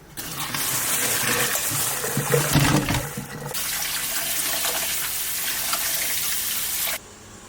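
Water from a kitchen tap gushing into a sink, rinsing blanched pork ribs and bones, with a few louder bumps about two to three seconds in. The water stops abruptly near the end.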